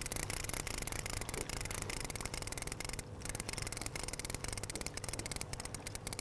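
Fishing reel being cranked, giving a fast, steady run of small clicks.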